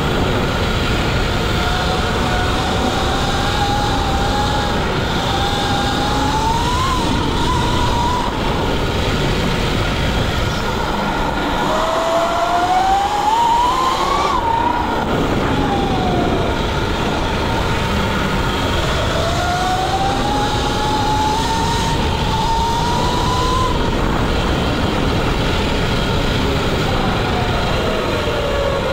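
Sur-Ron electric dirt bike ridden at speed on a dirt trail: the electric motor's whine rises and falls in pitch several times as the throttle is opened and eased, over a steady rush of wind and trail noise. The whine climbs highest about twelve to fourteen seconds in under hard acceleration and slides down near the end as the bike slows under regenerative braking.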